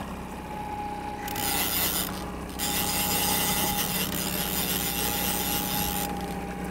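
Fishing reel being cranked steadily to bring in a hooked sockeye salmon, a continuous rasping, over the steady drone of the trolling boat's motor, with a thin whine that comes and goes.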